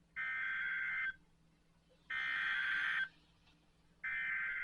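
Emergency Alert System SAME data tones from a NOAA Weather Radio broadcast: three buzzy, warbling digital bursts of about a second each, spaced about a second apart. This is the coded header that sets off an alert receiver.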